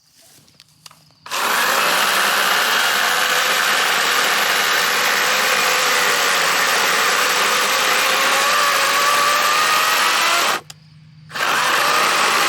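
Wild Badger 40-volt battery chainsaw with a 16-inch bar cutting a log: a steady electric motor and chain whine that sags slightly in pitch under load and rises again near the end. It stops for under a second, then runs briefly again.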